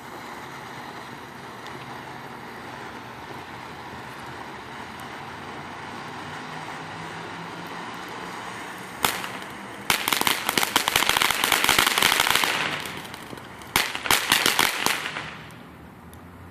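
Consumer fireworks: a steady hiss, then a single sharp crack about nine seconds in, followed by a long burst of rapid crackling and, after a short gap, a second shorter burst of crackling.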